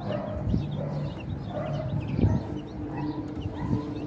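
Young chicks peeping continuously, many short high chirps overlapping. Two low thumps stand out, the louder one about two seconds in.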